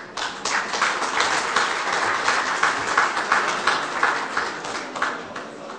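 An audience applauding, starting abruptly and dying away near the end.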